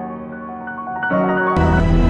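Background music: soft piano notes, with a fuller, louder band sound coming in about one and a half seconds in.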